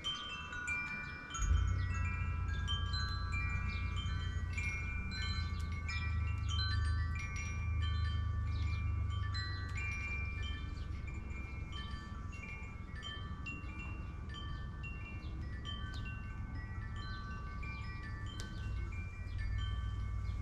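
Hanging metal tube wind chimes ringing in the breeze: many overlapping tones struck one after another, each left to ring on. A steady low rumble comes in about a second and a half in and continues underneath.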